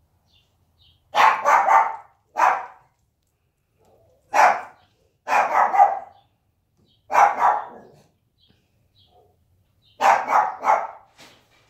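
Dog barking in six loud bursts of one to three barks each, a second or two apart.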